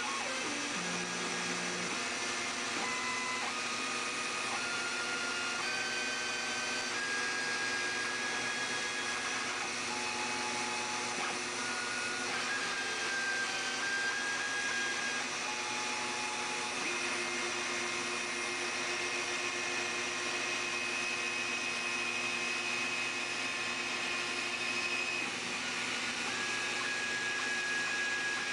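Rotozip spiral saw running steadily as the spindle of a home-made CNC router, cutting into a sheet. Over it, the router's stepper motors whine in short steady tones that jump to a new pitch every second or two as the axes change speed and direction.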